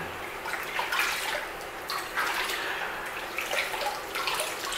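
Water splashing and sloshing in a plastic basin as a wet Persian cat is washed by hand, in irregular swishes.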